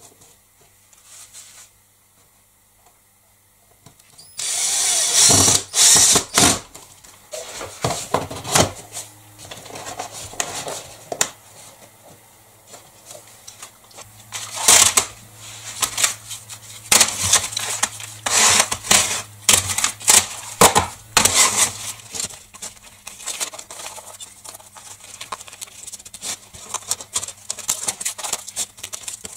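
Hand-work noises of tools and hard plastic parts being handled, knocked and scraped on a wooden workbench: many short knocks and rubbing sounds, after a loud burst of noise about four seconds in.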